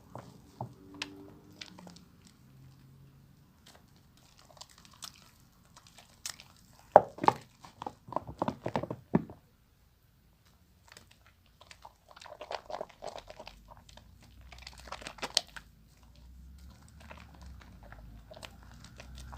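A bar of soap being lathered, with wet squishing and crackling in irregular bursts. The busiest run of squelches comes about seven to nine seconds in.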